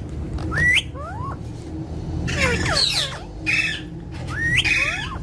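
Parrot whistling in short rising glides, with harsh squawking calls in between.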